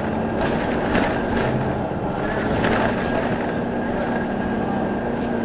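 Interior of a TTC Orion VII NG hybrid bus running: a steady drivetrain hum with a held whining tone, and a few short rattles and clicks from the cabin.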